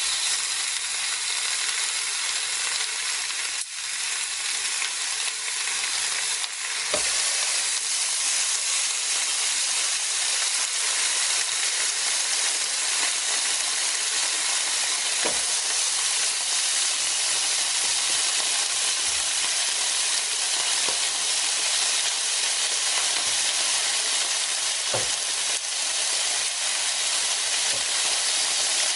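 Pork pieces sizzling on a hot Korean barbecue tabletop grill plate: a steady frying hiss with a few small pops of fat.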